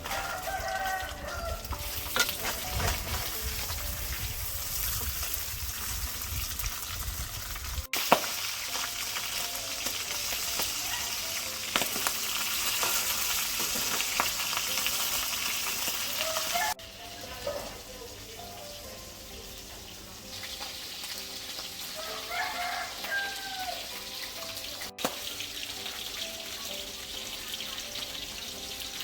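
Food frying in hot oil in a pan, a steady sizzling hiss with some stirring, broken into several stretches by cuts.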